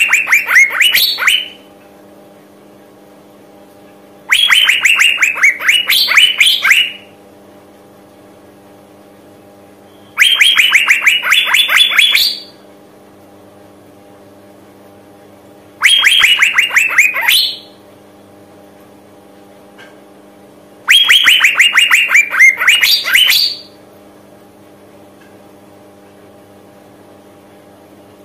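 Female Asian fairy-bluebird calling: a rapid run of notes lasting about two seconds and ending in a few higher, rising notes, repeated about every five to six seconds. This is the female's call to males, over a faint steady hum.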